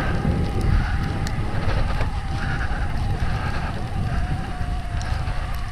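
Shimano Steps E8000 mid-drive motor of a Focus Jam² 9.6 Plus electric mountain bike whining steadily at one pitch under pedal assist, over a low rumble of wind on the microphone.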